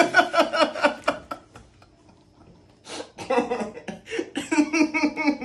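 A man laughing in rapid bursts, breaking off for about a second and a half, then laughing again.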